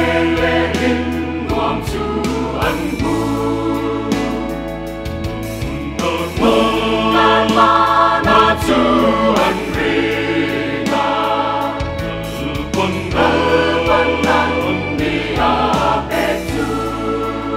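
Mixed choir of women's and men's voices singing a gospel hymn in harmony, the chords changing every second or so.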